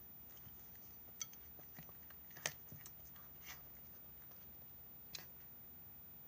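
A cat eating its dinner: a few faint, sharp crunches and clicks spaced a second or so apart, the loudest about two and a half seconds in, over a quiet room.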